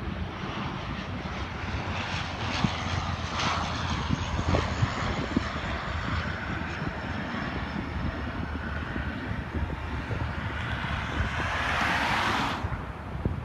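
Airliner engines running, with wind rumbling on the microphone; the engine noise swells near the end and then cuts off suddenly.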